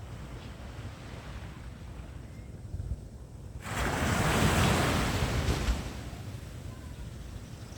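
Ocean surf with wind buffeting the microphone; about three and a half seconds in, a wave breaks with a loud rush that lasts about two seconds and fades.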